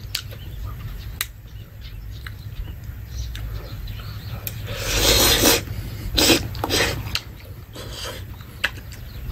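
A person slurping and eating noodles with chopsticks: a long, loud slurp about five seconds in, followed by shorter slurps and chewing.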